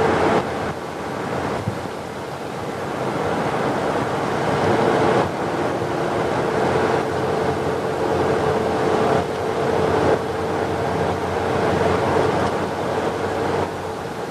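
Steady road and wind noise of a moving car, with a steady drone running through it.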